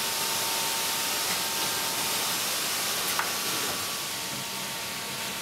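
Steady hiss from a pneumatic forming press as it presses a heated acetate spectacle front into its final shape, with a faint click about three seconds in.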